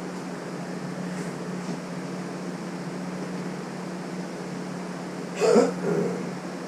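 A steady mechanical hum with a constant low tone, with a short grunt-like vocal sound about five and a half seconds in.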